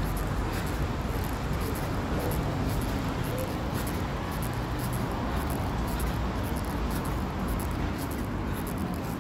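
Steady city street noise: a broad, even hiss over a low traffic rumble.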